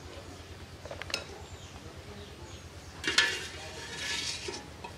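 A wire skimmer clinking and scraping against an aluminium cooking pot while boiled eggs are lifted out and tipped into a clay bowl. There is a small knock about a second in and one loud, sharp clink about three seconds in.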